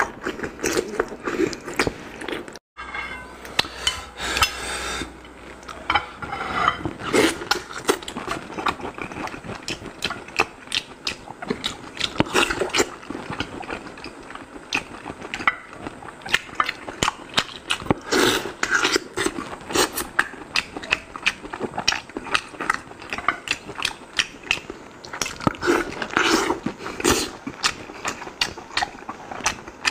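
Close-miked eating sounds: wet chewing and lip smacking on braised pork, then, after a brief cut, chewing on roast pork belly with crisp skin, full of quick, irregular sharp crackles and smacks.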